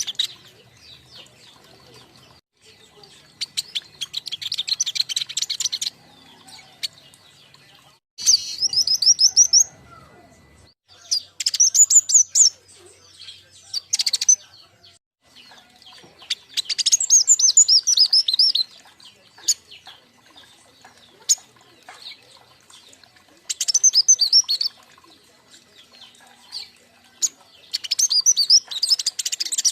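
Young king konin birds singing together in repeated bursts of rapid, high chirps and trills. Each burst lasts a second or two, with short pauses between.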